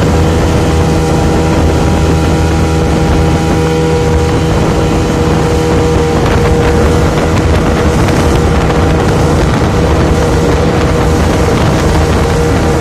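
Speed boat's engine running steadily at speed, a constant drone, with wind rushing over the microphone.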